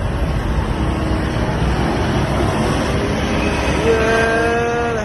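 Kobelco SK210LC excavator's diesel engine and machinery running with a steady low rumble. About four seconds in, a pitched whine rises in and holds for about a second.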